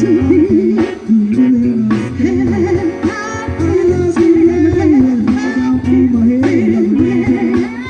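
Band playing an instrumental break: a lead melody line bending and sliding over bass and drums.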